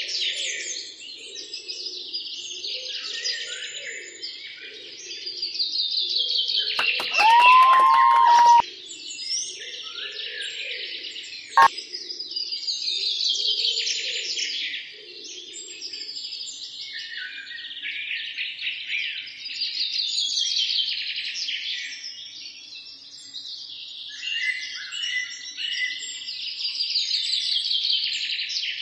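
A chorus of small birds chirping, rising and falling in swells every few seconds. About seven seconds in comes a brief, louder pitched call, and near twelve seconds a single sharp click.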